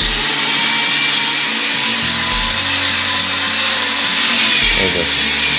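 Corded electric drill boring into a masonry wall, the motor running steadily under load.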